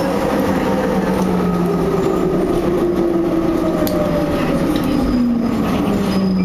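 A tram running, heard from inside the car: a steady rumble of wheels on rails under an electric motor whine that slides down in pitch as the tram slows toward a stop.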